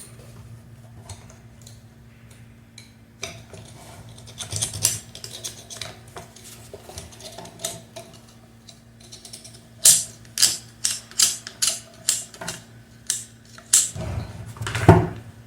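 Small metal tools and parts clicking and clinking while an electric fan's motor is taken apart, over a steady low hum. In the last third comes a quick run of sharp clicks, about two or three a second, ending in a heavier knock.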